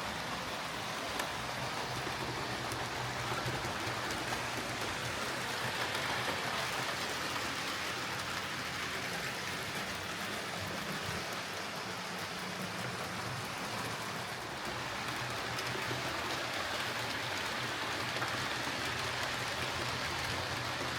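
Hornby OO gauge Class 9F model locomotive running on track: a steady whirr of its motor and gears with the rolling rattle of wheels on rail, the level rising and falling gently.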